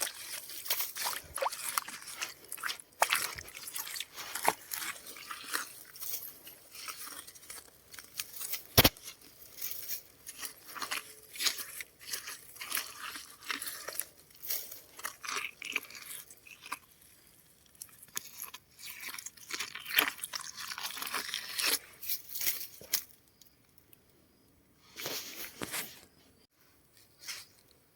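Digging by hand in hard, stony ground: irregular crunching and scraping strokes of a tool biting into earth and rock. They grow sparser and fainter in the last few seconds.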